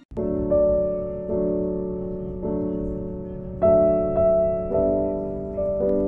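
Background music played on a piano-like keyboard. A slow run of chords starts just after a brief break, with a new chord struck about once a second and each one fading away.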